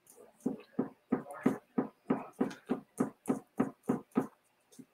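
Chalk Couture multi-tool squeegee scraping chalk paste through a silk-screen transfer onto a chalkboard, in quick even strokes about three a second. The strokes stop shortly before the end.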